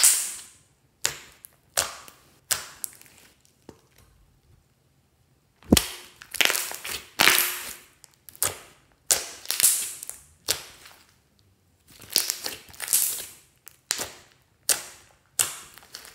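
Hands pressing and kneading a soft, glossy slime, its trapped air pockets popping with sharp snaps and crackles in irregular bursts. There is a lull of about two seconds near the middle, and the popping comes denser after it.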